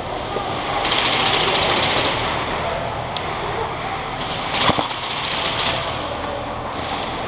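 Airsoft guns firing full-auto bursts: a rapid rattle of shots about a second in lasting about a second, and another from about four and a half to six seconds in, over a steady background hubbub.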